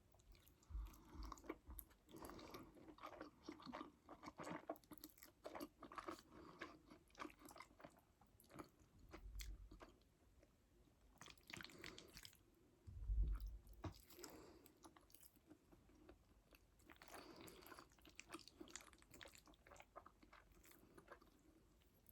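Close-miked chewing and biting of a mouthful of food: a run of quiet, wet mouth clicks and smacks, with a louder bite or thump about thirteen seconds in.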